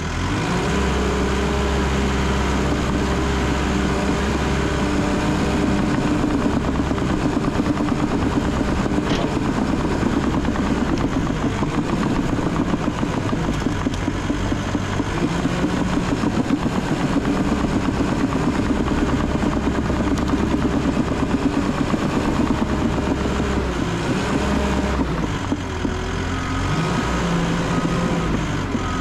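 Cat D3 bulldozer's diesel engine running under working load, heard from the operator's seat, its note rising and falling as the blade pushes brush and dirt. A repeated high beeping comes in near the end.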